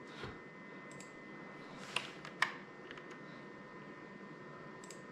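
A few separate clicks at a computer, the two loudest about two seconds and two and a half seconds in, over a faint steady electronic whine.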